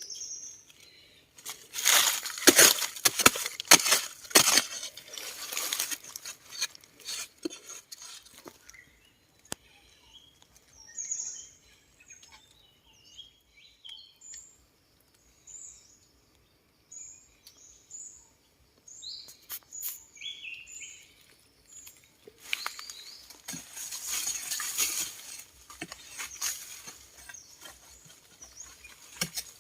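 A small bird chirping in short, high calls, with stretches of rustling and scraping noise at the start and again near the end.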